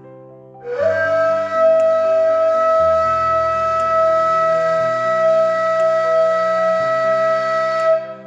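Ney (Turkish end-blown reed flute) blown in one long, steady note that starts with a slight upward scoop, about the Re note of a beginner's long-tone exercise. It lasts about seven seconds and stops cleanly.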